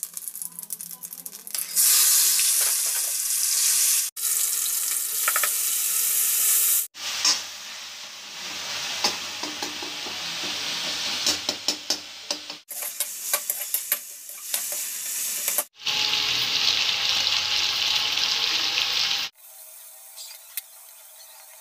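Chopped onion and tomato sizzling as they fry in oil in a metal wok, with a spatula stirring and scraping the pan in clicks and scrapes. The sound cuts off and restarts abruptly several times, and near the end drops to a faint hiss.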